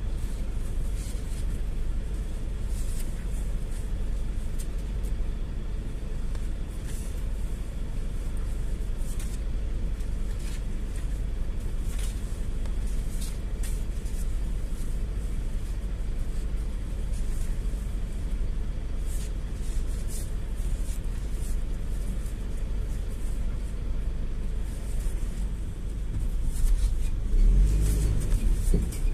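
Steady low rumble of a GAZ-A68R52 City minibus driving, heard from inside the cabin, with scattered brief rattles. It grows louder over the last few seconds.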